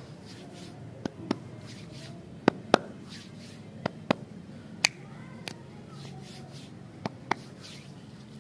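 Finger snaps: about ten sharp snaps, mostly in quick pairs about a quarter second apart.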